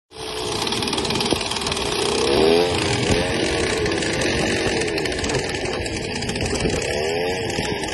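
Small engine of a lure-coursing machine running hard as it pulls the lure across the field, its pitch rising and falling a few times as the speed changes.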